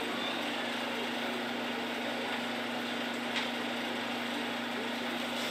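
Steady hum of a building's air-handling system, with one constant tone. A single faint tick comes about three and a half seconds in.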